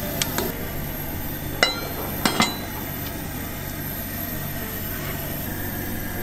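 Metal ladle and lid clinking against a Dutch oven: a couple of light clinks, then sharper clanks about one and a half and two and a half seconds in as the pot is covered.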